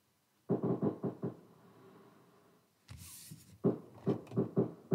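Two quick runs of light knocks, a few strokes each, one about half a second in and one near the end, with a short hiss between them about three seconds in.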